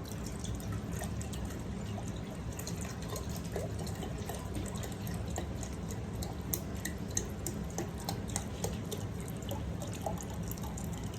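Chicken broth poured from a carton into a measuring cup, trickling and dripping, over a steady low hum.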